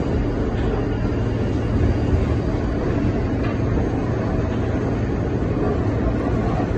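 Steady deep rumble of a New York City subway car running along the track, heard from inside the car.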